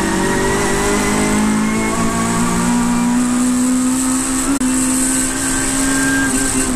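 Saloon race car engine heard from inside the cabin, pulling hard under full acceleration with its note slowly rising. There is a brief break in the note about four and a half seconds in, a gear change, and the engine then pulls on, over steady wind and road hiss.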